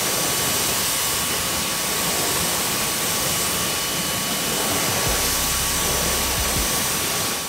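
Active 1.0 electric pressure washer spraying: a steady, loud hiss of the water jet with a thin steady whine above it. A low hum comes in about five seconds in.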